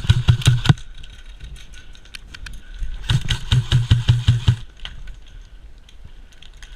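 Airsoft electric gun firing on full auto in two bursts, a short one at the start and a longer one about three seconds in. Each burst is a rapid string of shots, about eight a second, over the hum of the gearbox motor.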